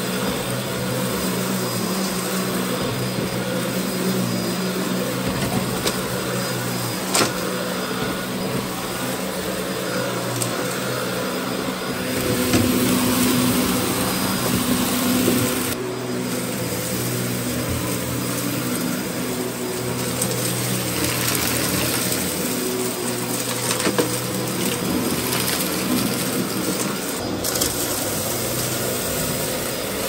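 Dyson DC04 upright vacuum cleaner running steadily while it is pushed back and forth over carpet, picking up grit, with a few sharp ticks of debris being sucked in. It gets louder for a few seconds near the middle.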